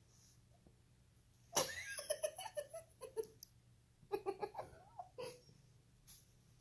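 A person laughing in two bursts of short pulses, one about a second and a half in and another about four seconds in, the first starting loudest.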